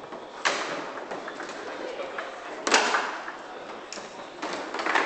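Foosball table in play: sharp knocks as the hard ball is struck by the rod figures and hits the table, one about half a second in and the loudest near three seconds in, then more clatter near the end, over murmuring voices in the hall.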